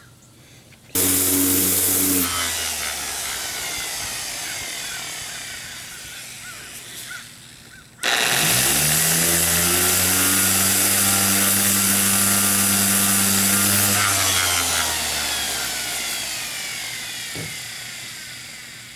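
Bosch 3725DVS random orbit sander sanding corrosion off the aluminum bottom of a jon boat. It switches on about a second in, runs briefly, then slowly winds down. About eight seconds in it starts again, runs steadily for about six seconds, and then winds down slowly with falling pitch.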